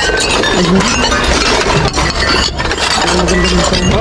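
Dishes and glassware clinking and rattling as they are rummaged through in a pile of tableware, with voices of a crowd underneath.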